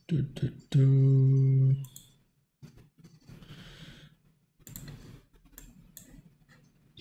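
A man's drawn-out wordless hesitation sound held on one pitch for about a second, followed by scattered computer mouse clicks and soft breaths.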